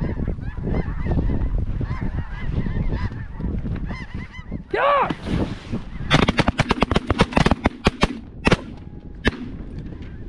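A flock of snow geese calling overhead, many overlapping honks, with one loud call about five seconds in. About six seconds in, several shotguns fire in a quick, ragged volley lasting two to three seconds, followed by a few more single shots.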